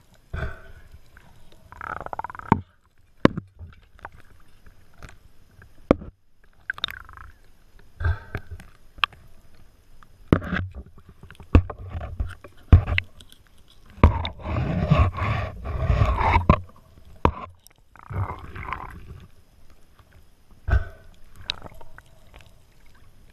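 Underwater handling of a speared parrotfish: scattered sharp clicks and knocks from gloved hands and spear gear, with longer rushing bursts of noise, the longest about two seconds in the middle.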